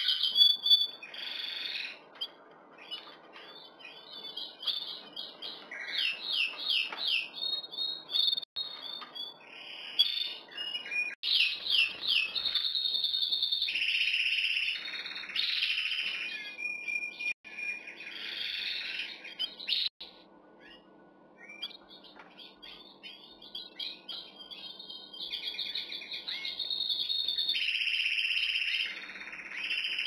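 Male canary singing courtship song: phrases of fast high trills and chirps with short pauses, going quieter for a couple of seconds about two-thirds of the way through, then picking up again.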